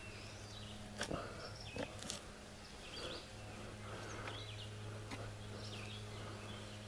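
Quiet back-yard ambience: faint bird chirps over a steady low hum, with a few soft clicks in the first two seconds as soil clumps are worked by hand.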